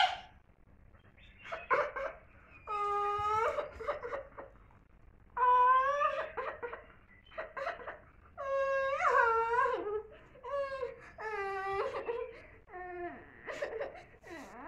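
A girl's pretend crying: a string of drawn-out, wavering wailing sobs, each about a second long, with short gaps between them.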